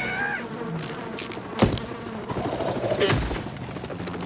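Cartoon sound effects: a steady fast buzzing, with two sharp hits about a second and a half apart and a few short squeaky pitched sounds.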